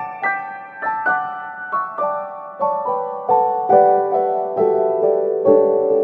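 Background piano music: single notes struck about twice a second, each ringing and fading, the melody stepping gradually down in pitch.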